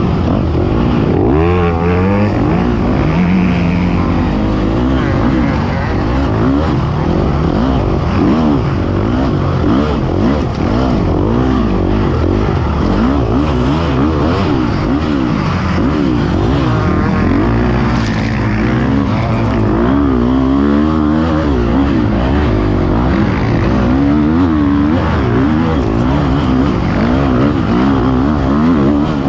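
Motocross dirt bike engine revving up and down again and again as the rider works the throttle and gears, heard close up from on board the bike.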